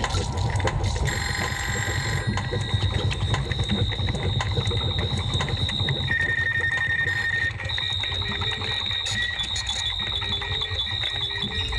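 Electronic soundscape: a dense low rumble under thin, sustained high-pitched tones that come in about a second in, with short repeated low beeps in the second half.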